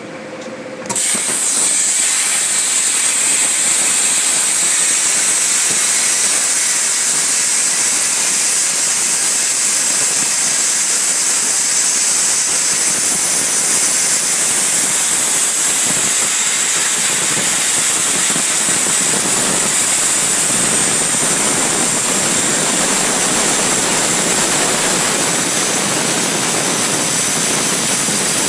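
Hypertherm Powermax 105 plasma torch cutting 20 mm mild steel pipe: the arc strikes about a second in and then runs as a loud, steady hiss.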